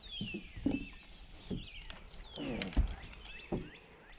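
Birds calling with repeated whistles that slide downward, over several knocks and rustles close to the microphone from hands handling the fly rod and line; one thump about two-thirds of the way in is the loudest.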